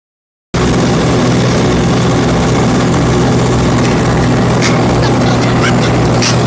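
Tractor engine running steadily while baling hay, with a few faint clicks in the second half.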